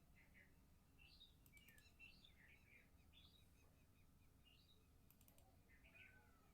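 Near silence, with small birds chirping faintly throughout as short, scattered calls, and a few faint clicks twice.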